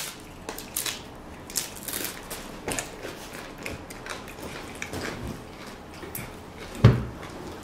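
Close-up crunching and chewing of tortilla chips with guacamole: a string of short, crisp crunches, with one heavier thump near the end.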